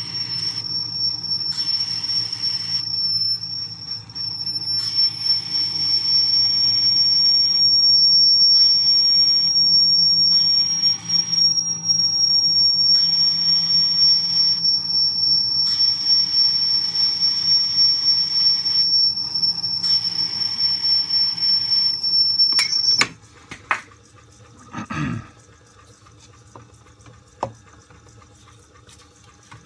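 Lathe running slowly while a reamer opens out a Morris Z kingpin bush, giving a steady high squeal. Several short hisses of WD-40 are sprayed on as cutting lubricant. The squeal and running stop abruptly about 23 seconds in, followed by a few light knocks.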